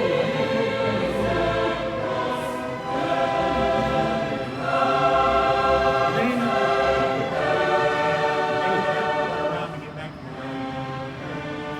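Choral music: voices holding sustained chords that change every few seconds, softening near the end.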